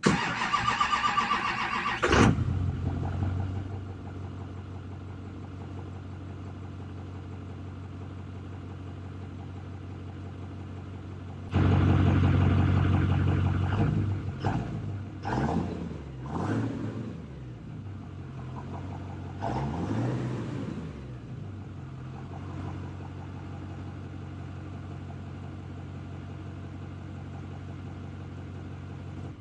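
Common-rail diesel truck engine starting up and settling into a steady idle just after a new fuel feed line to its CP3 injection pump was installed. About a third of the way in it is revved several times, the pitch rising and falling, before dropping back to idle.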